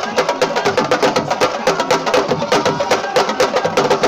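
Sabar drums played fast, a dense run of sharp, ringing strokes that carries the dance.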